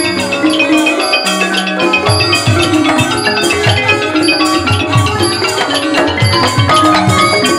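Thai piphat mai khaeng ensemble playing an instrumental passage: ranat xylophones and gong circles run in fast struck notes over a steady low drum beat.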